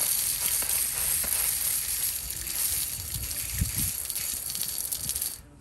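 Garden hose spraying water onto a heat pump's hot compressor, a steady hiss that stops suddenly near the end. The water is cooling the compressor so its internal thermal overload will reset.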